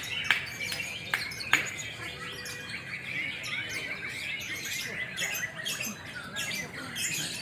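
Lovebird singing a long, unbroken run of fast chattering chirps, with a few sharp clicks in the first two seconds.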